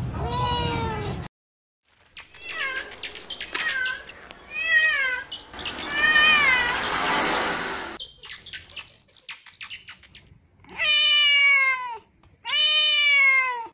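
Kittens meowing: a string of short meows through the first half, then two longer meows of about a second each near the end, each falling in pitch.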